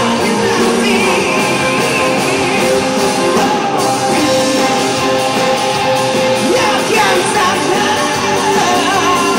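Rock song played by a band with a singer's voice over it, loud and continuous.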